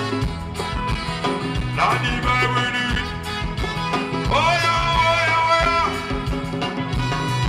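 Band music at a sound check with a singer: a steady bass line under a melody, the voice sliding up about two seconds in and holding one long note a little past the middle.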